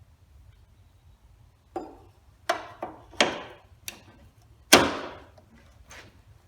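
Tools and metal hardware being handled: about seven sharp clanks and knocks, starting about two seconds in, the loudest about three-quarters of the way through.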